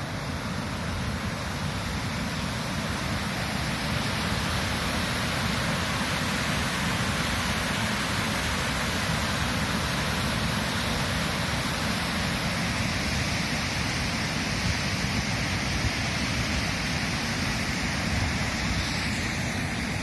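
Kaveri River floodwater pouring over the long, low weir of Balmuri Falls and churning down its face, a steady rushing noise that never lets up. The river is in high flow from water released out of the KRS dam upstream.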